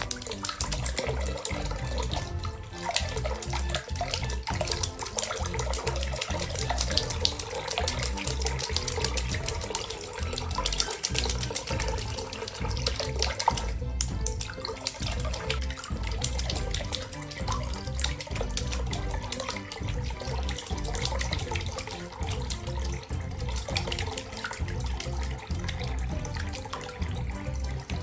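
A budgerigar splashing and beating its wings in a sink under a running tap, with water streaming and spattering in rapid, irregular splashes. Background music plays underneath.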